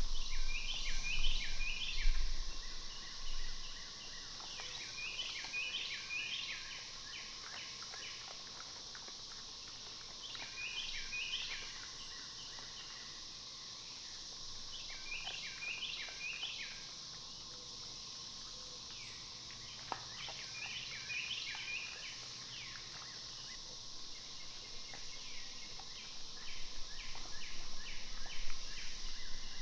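A songbird singing the same short phrase of several quick notes about every five seconds, over a steady high hiss of insects. A low rumble in the first couple of seconds, and louder noise building near the end.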